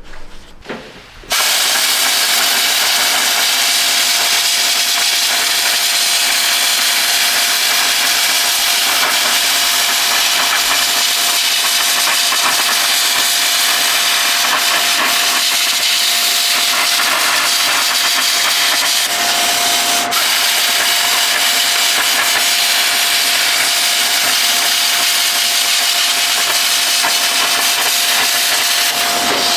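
A power tool cutting or grinding steel sheet runs steadily, a loud even hiss with a steady tone through it. It starts about a second in.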